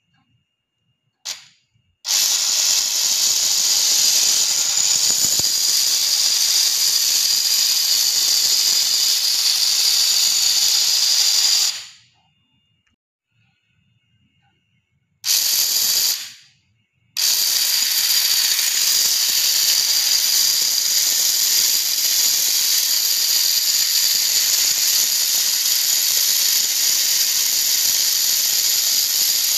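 A small brushed DC motor spinning a 3D-printed plastic planetary gear set, giving a loud, high, hissing whir of motor and meshing plastic teeth. It starts about two seconds in, stops for about three seconds after roughly ten seconds of running, gives a short one-second burst, then starts again about seventeen seconds in.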